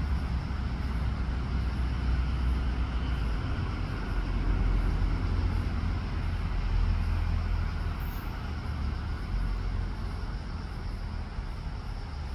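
Steady low rumble under an even hiss of background noise.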